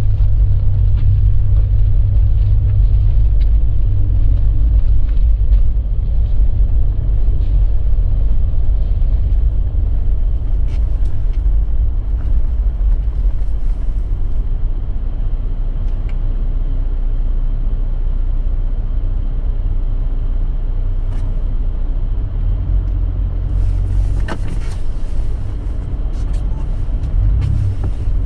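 Car engine and road rumble, steady and low, while driving on snowy roads, with a few faint clicks and a short hiss near the end.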